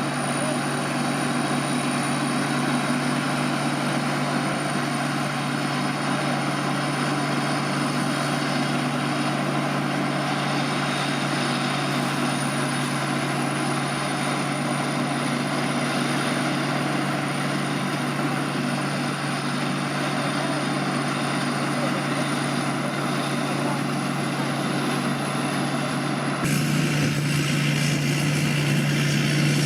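Combine harvester running steadily while harvesting rice: a constant engine drone with a thin high whine above it. The sound changes abruptly near the end, the hum growing louder and the whine dropping away.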